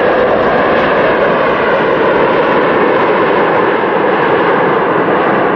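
Jet airliner's engines running with a loud, steady noise as the twin-engine plane rolls down the runway.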